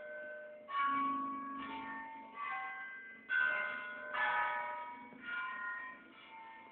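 Church bells in a bell tower pealing, struck in turn at about one stroke a second. Each stroke starts sharply and rings on, the bells' different pitches overlapping as they fade.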